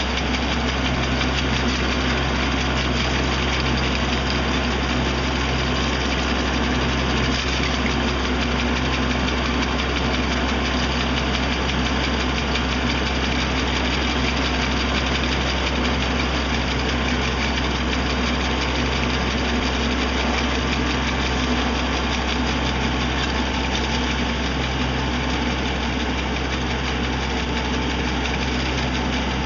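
A boom-mounted hydraulic brush trimmer at work: the carrying machine's engine runs steadily with a strong low hum while the cutter bar is pushed through branches and foliage.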